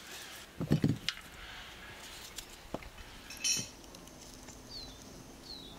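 Kitchenware knocking and clinking: a quick cluster of knocks just under a second in, a few single taps, then a ringing metallic clink a little past the middle. A bird chirps twice near the end.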